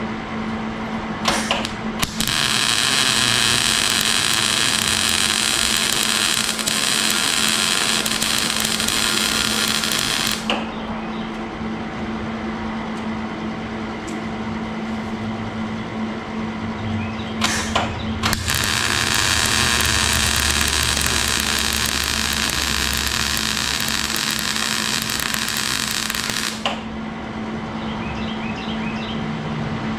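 Millermatic 130 MIG welder laying two test beads of about eight seconds each, the arc crackling steadily after a brief strike before each one; the welder is working again after its melted contactor was replaced. A steady low hum runs underneath.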